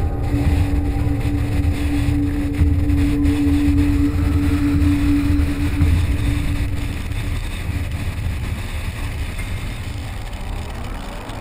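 A vehicle driving at speed on a highway: steady low engine and road rumble with wind noise on the microphone, and a steady hum that fades away about two-thirds of the way through.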